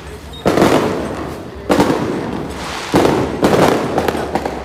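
Firecrackers going off in repeated bursts about once a second, each opening with a sharp bang and crackling away over about a second, four bursts in all.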